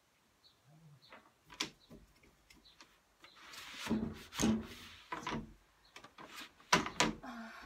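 A wooden rigid heddle loom being worked by hand. Sharp wooden clicks and knocks come as the heddles are moved, and about halfway through a stick shuttle rustles through the warp threads for about a second.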